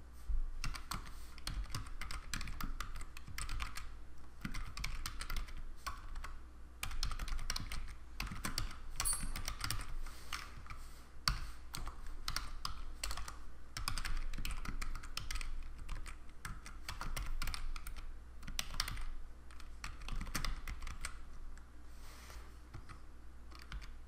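Typing on a computer keyboard: runs of quick keystrokes with short pauses between them.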